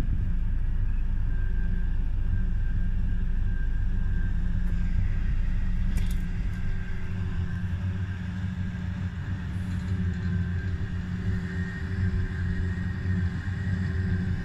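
A New Holland FR480 forage harvester runs steadily while chopping alfalfa, heard as a distant engine drone with a steady high whine over it. A deep rumble underneath drops away about six seconds in.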